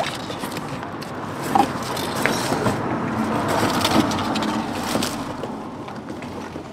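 Cardboard boxes and plastic storage bins being shoved and scraped into place in a packed car trunk: a jumble of rustling and scraping with scattered knocks, busiest in the middle.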